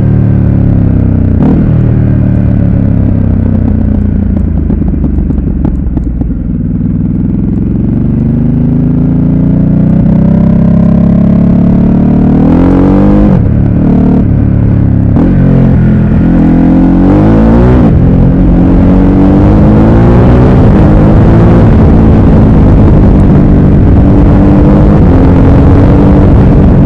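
Ducati Supersport S's 937 cc L-twin engine from the rider's seat: it winds down for the first several seconds, then accelerates hard through a run of quick upshifts, the pitch dropping sharply at each shift, and pulls steadily upward near the end. Wind buffets the microphone.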